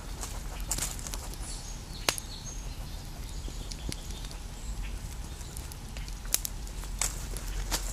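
Scattered sharp snaps and crackles of dry leaves and twigs, a few seconds apart, over a steady low background rumble.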